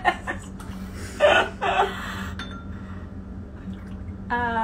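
Short laughs and gasps, then near the end a held, high-pitched vocal sound lasting about a second and sliding slightly down in pitch. A faint steady low hum runs underneath.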